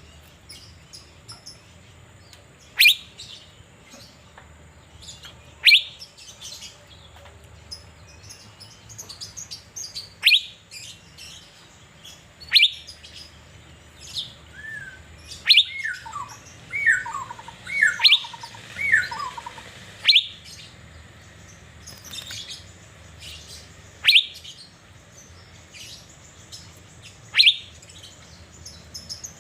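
Asian fairy-bluebird (cucak biru) singing in full voice while being sunned. Loud, sharp falling calls come every few seconds. A quick run of lower falling whistled notes comes in the middle. Faint high chirps sound in between.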